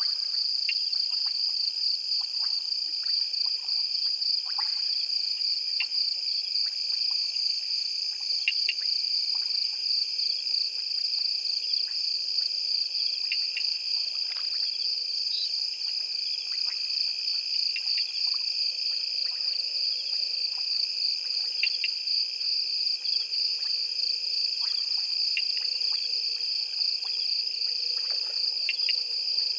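Night chorus: insects keep up a steady, fast-pulsing high trill, while frogs call with short chirps and clicks scattered throughout.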